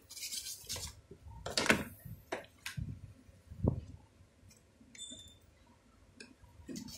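Scattered clicks and knocks of handling as the air cooler's control board is plugged into the mains, with a faint short electronic beep about five seconds in.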